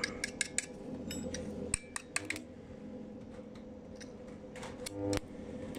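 Stick-welding electrode touched and scratched against a steel plate to strike an arc, giving many sharp, irregular clicks and brief crackles over a steady low hum.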